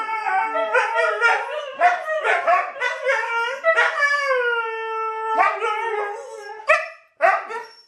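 Siberian husky howling and 'talking': a string of wavering, broken howls, then one long held howl about four seconds in that slides slightly downward, ending in a couple of short yelps before it stops suddenly near the end.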